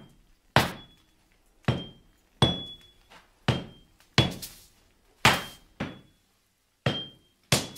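Heavy hammer blows on a glowing billet of steel on an anvil, about nine strikes at roughly one a second, several leaving a short high ring.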